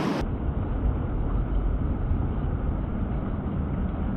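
Steady rushing of a small cascade in a mountain trout stream, a constant deep water noise.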